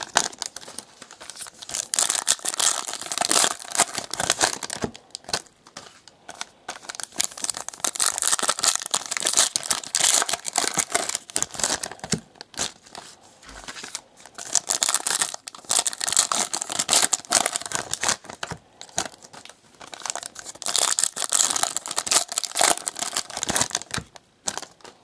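Foil trading-card pack wrappers being torn open and crinkled by hand, in irregular bursts with short pauses between them.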